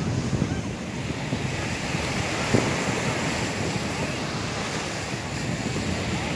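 Surf breaking and washing up a sandy shore, with wind buffeting the microphone. A short knock about two and a half seconds in.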